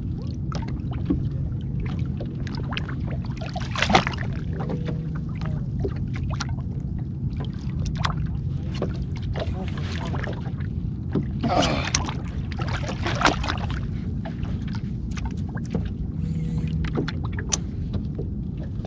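Water lapping and slapping against the hull of a small open skiff, with scattered knocks and clicks from fishing rods and reels being worked.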